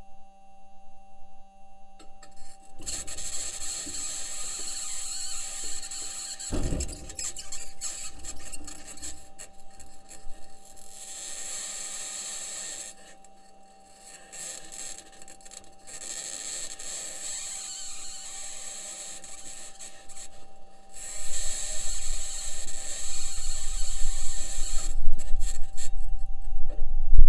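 Perseverance rover's metal wheels scraping and squealing over Martian rock as it drives, recorded on the rover, over a faint steady tone. The grinding comes and goes. There is a low thump about six and a half seconds in, and a heavier low rumble in the last few seconds.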